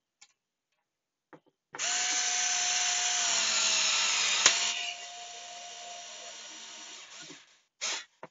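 Cordless drill driving a screw into a pegboard wall: the motor starts with a steady whine, runs loud for about three seconds, then a sharp click, after which it runs more quietly for about two and a half seconds and stops.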